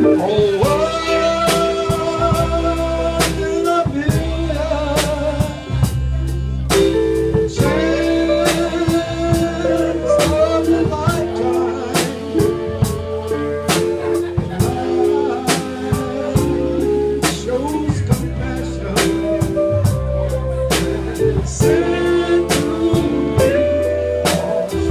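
A man singing into a microphone in sung phrases with short breaks, backed by a live band: electric guitar, keyboard and drums keeping a steady beat.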